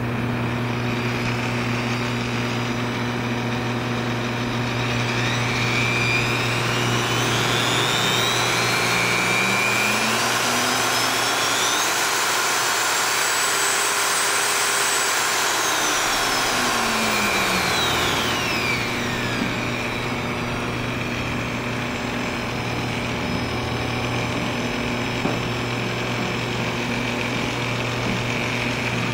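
Milwaukee 4204-1 electromagnetic drill press running with no load: its motor starts right at the beginning and runs over a steady low hum. The motor's whine climbs in pitch over several seconds, peaks around the middle, then falls back and runs steady again.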